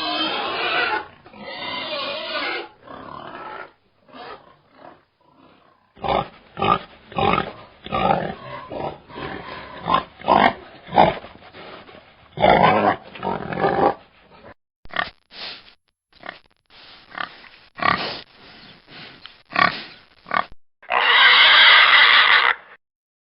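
Pigs grunting: many short grunts in quick succession, thinning out later, with one longer, loud call near the end.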